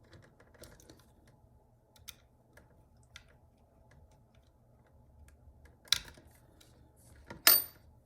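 Small clicks and scrapes of a screwdriver and wire working a screw terminal on a doorbell chime kit, with a louder click about six seconds in and a sharper, louder clack about a second later.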